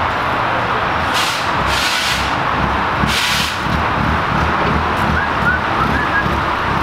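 Forklift engine running as the forklift drives slowly forward carrying a heavy wooden crate, with three short hisses in the first few seconds.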